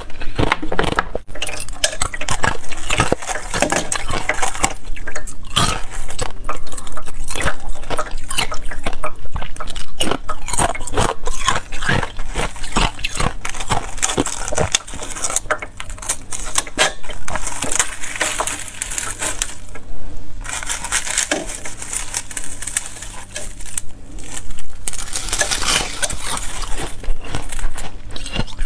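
Thin, brittle sheets of ice crystals from inside a frozen ice ball being pulled apart and crushed by fingers: a dense run of small sharp cracks and clinks, with busier stretches of crackling.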